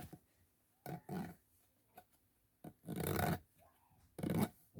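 Plastic pop tube fidget toy making three short rasping bursts, each about half a second long.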